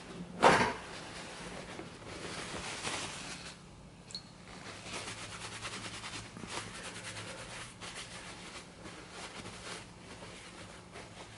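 Hands being wiped clean with a cloth or paper towel: an uneven rubbing and rustling, after a single knock about half a second in, with a faint low hum underneath.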